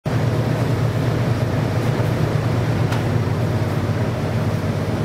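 A car ferry's engines running, a steady low drone.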